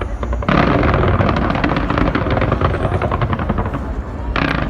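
Fireworks going off in quick succession: a dense crackle of many small bangs starts about half a second in over a low rumble, with another burst near the end.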